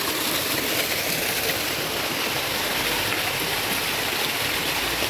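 Garden fountain water falling and splashing steadily into a pond, an even rushing splash.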